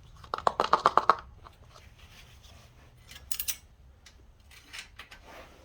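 Handling of a plastic motor-oil bottle: a quick rattling run of plastic clicks lasting about a second, as when a cap is twisted open, then a short, high scrape about halfway through.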